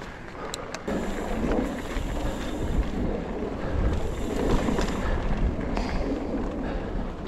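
Wind buffeting the microphone over the tyre noise of an Ibis Ripley mountain bike rolling down rocky singletrack, with a few sharp clicks as it rattles over stones.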